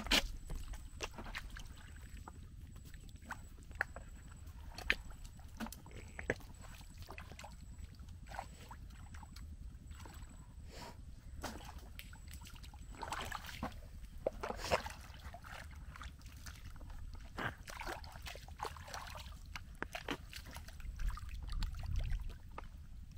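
Bare feet squelching and sloshing through wet mangrove mud and shallow water, with scattered sharp clicks and pops as a metal crab hook probes the mud.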